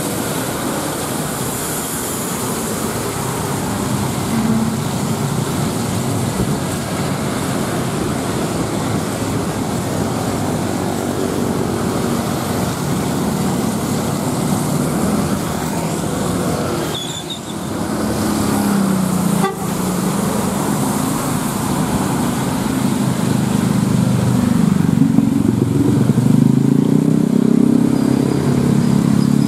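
Busy traffic on a wet road: motorcycles, cars and intercity buses passing, with tyre hiss and a vehicle horn tooting. Engines grow louder near the end.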